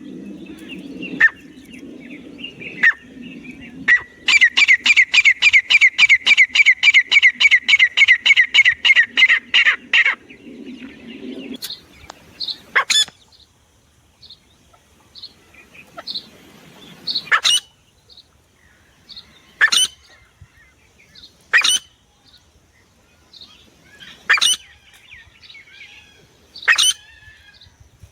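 Francolin (teetar) calling: a fast run of sharp, high call notes, about four a second for some six seconds, then single sharp calls every two seconds or so.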